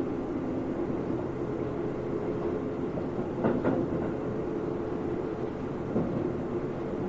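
Keio 8000 series electric train, with a Hitachi GTO-VVVF inverter and induction motors, heard from inside a motor car while running at low speed. It gives a steady hum, with the wheels clacking over rail joints about halfway through and again near the end.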